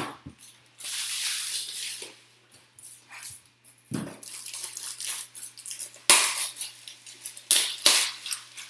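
Trading cards and rigid plastic top loaders being handled: bursts of rustling and sliding, a dull knock about four seconds in, and sharp clicks and taps. The loudest click comes about six seconds in, with two more near the end.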